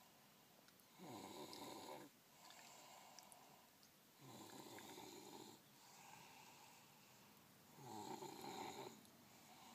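Faint snoring: three louder, rough snores about a second long, roughly every three and a half seconds, with softer breaths between them.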